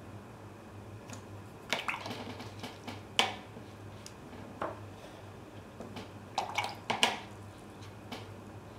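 Paintbrush being rinsed in a water jar and tapped against it: a scatter of light clinks and small splashes, the loudest about three seconds in and a quick cluster around seven seconds, over a steady low hum.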